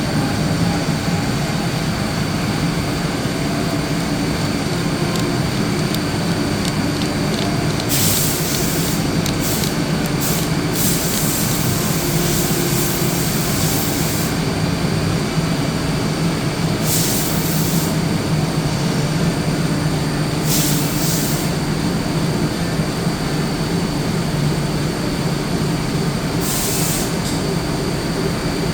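DMG Mori CMX 50 U CNC mill cutting Inconel 718: steady spindle and cutting noise with a thin high whine. Several times it is broken by spells of sharp hiss, the longest running a couple of seconds.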